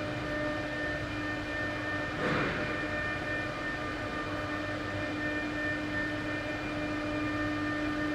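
A steady mechanical hum with a held, even-pitched whine, and a brief rustling burst about two seconds in.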